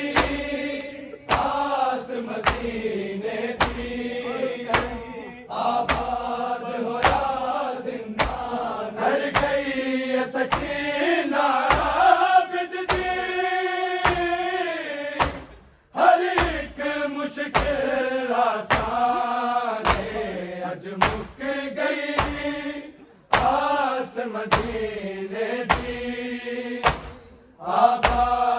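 An anjuman chanting a noha (mourning lament) in chorus, with sharp rhythmic chest-beating (matam) strikes about once a second keeping the beat.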